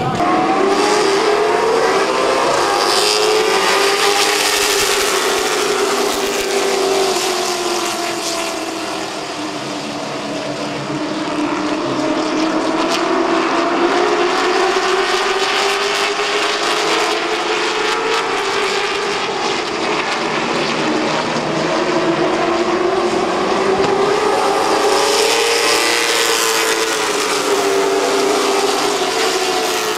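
A pack of stock cars racing around a short oval track, the engines running hard. The engine pitch rises and falls in long, slow swells, several times over.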